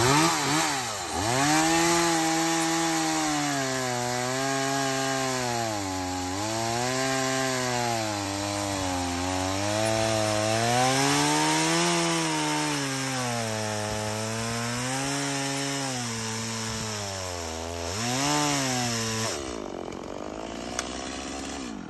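Stihl MS180C two-stroke chainsaw cutting into a live oak log with a dull chain. The engine's pitch sags and recovers again and again as it bogs under load while barely cutting, then drops off near the end.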